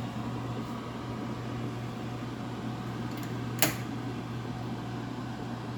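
Steady low hum of a fan or motor, with a single sharp click about three and a half seconds in.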